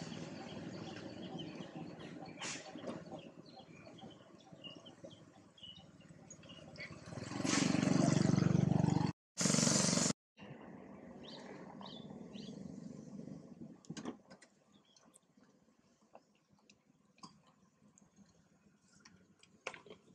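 Outdoor ambience with small birds chirping faintly, broken by a loud rush of noise lasting about a second and a half near the middle, after which the sound cuts out twice briefly; afterwards a quieter background with scattered small clicks.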